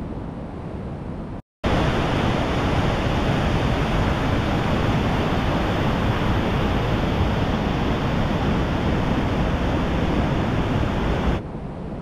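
Steady rushing of water from a canyon creek and waterfall, with no distinct events in it. It cuts out briefly about one and a half seconds in, comes back much louder, and drops back to a quieter rush near the end.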